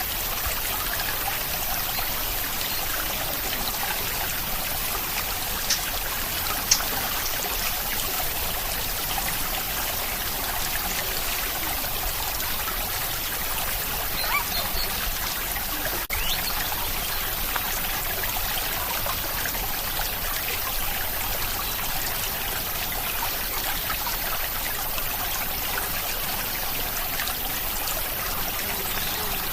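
Steady rain falling, an even hiss of water with a few louder sharp clicks here and there.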